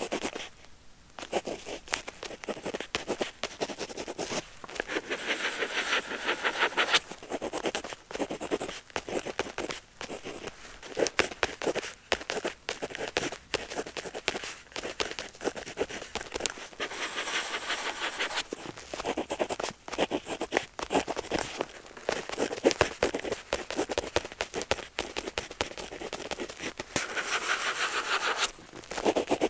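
Pen tip scratching across paper: a quick run of short strokes and taps, with longer scratching stretches now and then.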